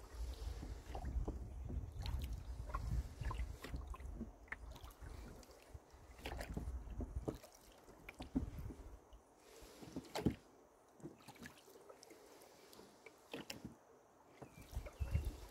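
Oars rowing a small rowboat: blades dipping and pulling through the water with splashes and drips, and a knock with each stroke, about every two seconds. Wind rumbles on the lavalier microphone for the first half.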